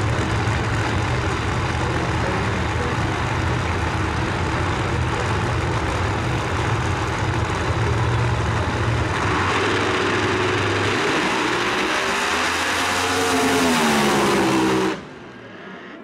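Two drag-racing cars' engines running loudly at the starting line. Later the engine pitch climbs and bends as they accelerate, and the sound cuts off suddenly near the end.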